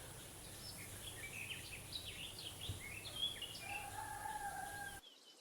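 Faint birds chirping: a run of many short, quick notes over a soft background hiss, with a held whistle-like tone for about a second near four seconds in. The sound drops out almost entirely near the end.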